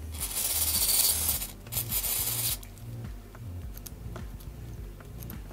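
Aerosol contact cleaner (KONTAKT PRF 6-68) hissing through its extension straw into a play/record slide switch to clean its contacts, in two bursts, the first about a second and a half long. Then a few faint clicks as the slide switch is pushed back and forth.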